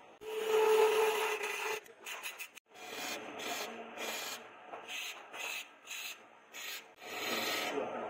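Chisel cutting into a wooden machete handle spinning on a wood lathe: a longer scraping cut about half a second in, then a run of short scraping strokes about two a second, and another longer cut near the end.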